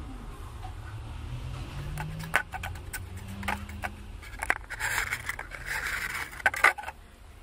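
Clicks and knocks of a plastic bottle being handled, then a hissing splash of paint thinner poured from it onto wet paint, over a low steady hum.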